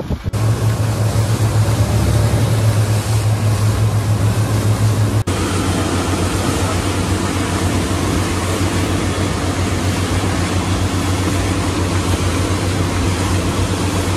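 Twin Suzuki 175 outboard motors running steadily under way, a constant low drone mixed with the rush of wind and water past the hull. The drone's tone changes abruptly about five seconds in.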